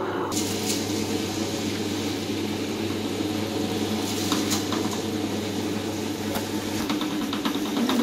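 Table-top wet grinder running with a steady motor hum as its stone rollers turn in the steel drum, while soaked idli rice is fed in by hand; a few light clicks come about four and six seconds in.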